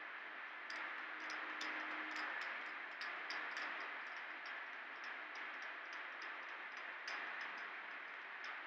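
Steady hiss with a run of faint, irregular ticking clicks, several a second, starting about a second in.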